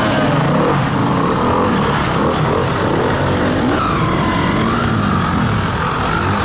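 Several enduro motorcycle engines revving up and down at once, their pitches rising and falling and overlapping as the bikes climb a muddy bank.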